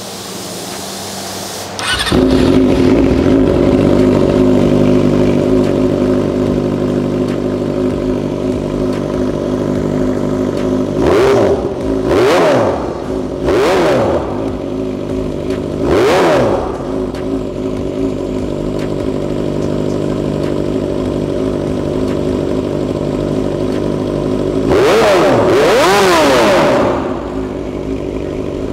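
Yamaha R6 600 cc inline-four on an aftermarket Avionic exhaust, idling with a dry tone. It is blipped four times in quick succession about 11 to 16 seconds in, and held in a longer rev near the end.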